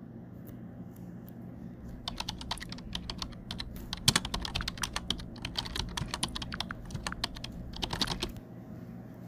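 Rapid keyboard typing: a quick, irregular run of key clicks that starts about two seconds in and stops near the end, over a steady low hum.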